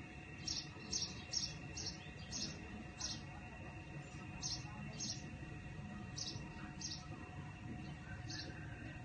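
A small animal giving a series of short, high-pitched chirps, about a dozen unevenly spaced, over a low steady rumble.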